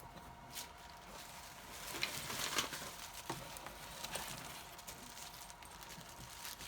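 Rustling and light clattering as radio gear and packing are handled in a box, with a few short knocks, busiest about two to four seconds in.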